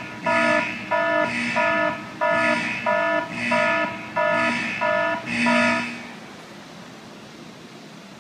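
Car horn honking in a steady rhythm, about two short honks a second, the last one held a little longer, stopping about six seconds in.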